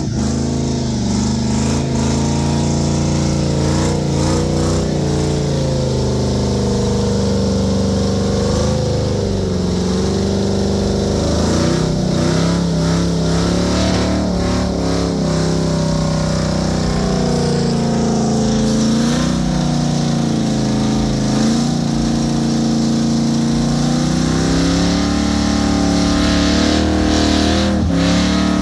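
Chevy pickup truck's engine held at high revs during a burnout, its pitch rising and falling several times as the throttle is worked and climbing again near the end, over the noise of the spinning rear tyres.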